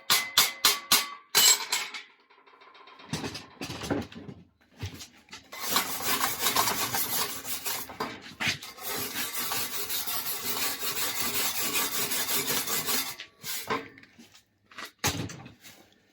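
Cleaning a fresh stick weld: quick regular taps, about five a second, stop about a second in, then scattered knocks. From about five seconds in, a wire brush scrubs steadily across the metal for some seconds, with a few more knocks near the end.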